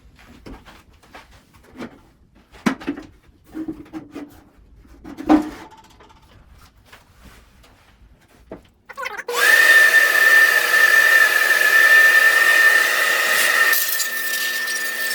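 Scattered clicks and knocks from the clips and front cover plate of a bandsaw being handled, with one sharper knock about five seconds in. About nine seconds in, a small electric motor starts and runs steadily with a high whine, its tone shifting slightly near the end.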